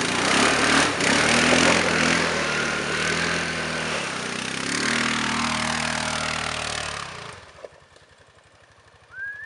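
Honda Rincon ATV's single-cylinder engine under throttle, pulling away across snow and climbing a dirt hill. It stays loud for about seven seconds, then drops away sharply as the quad reaches the top. A short rising squeak sounds near the end.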